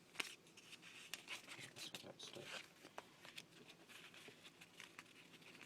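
Faint rustling and light ticks of paper stickers being handled and flipped through.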